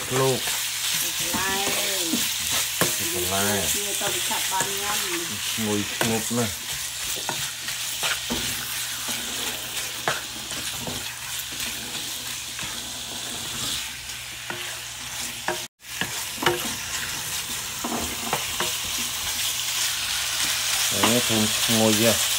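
Diced raw meat frying in oil in a nonstick frying pan, stirred with a wooden spatula: a steady sizzle with scattered scrapes and taps of the spatula against the pan.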